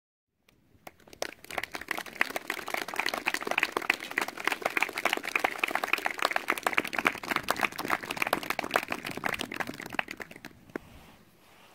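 Audience applauding: many hands clapping together, building up in the first second or so and dying away near the end.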